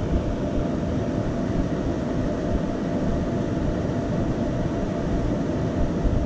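The two thin 80 mm 24 V DC rear cooling fans of a Flashforge Dreamer NX 3D printer running at full speed: a loud, steady rush of air, measured at about 82 dB at the grille.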